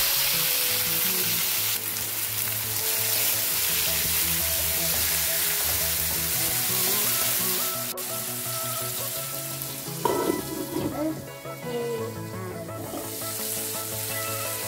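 Sliced tomatoes frying with onions and garlic in hot oil in a non-stick pan, giving a steady sizzle. The sizzle dies down about ten seconds in and picks up again near the end.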